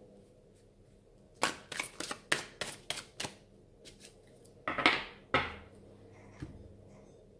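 A deck of oracle cards being shuffled by hand: a quick run of about eight sharp clicks, then a louder rustle of cards sliding about five seconds in.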